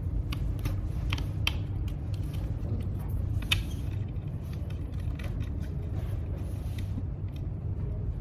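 Light clicks and scrapes of hands working on a plastic electronics enclosure, screwing an antenna onto its connector and fitting its cable, over a steady low hum.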